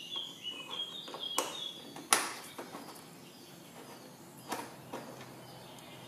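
A hex key working a bolt out of a Yamaha Xmax 300 scooter's plastic body panel, heard as a few sharp clicks and knocks of metal on plastic, the loudest about two seconds in. Birds chirp in the background for the first couple of seconds.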